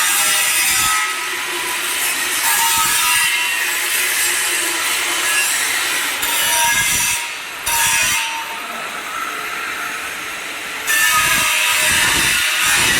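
Angle grinder grinding a steel pipe, a continuous high rasping hiss with a steady whine from the disc. It eases off for a few seconds in the middle and comes back at full load near the end.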